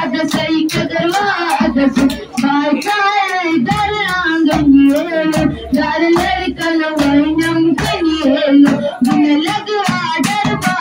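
A boy singing into a microphone, with other children joining in and clapping along in a steady beat.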